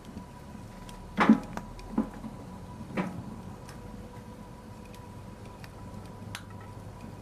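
Wood fire crackling in a fireplace: a low steady hiss with scattered small clicks, and three sharp pops about a second apart, the first and loudest about a second in.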